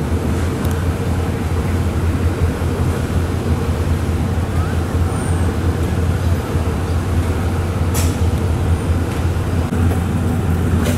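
Steady low mechanical drone of a standing train's running machinery, with a sharp click about eight seconds in.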